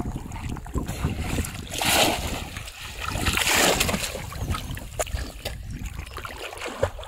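Water splashing and sloshing as a person moves through shallow river water, with a low rumble on the microphone throughout. Two louder surges of splashing come about two seconds and three and a half seconds in.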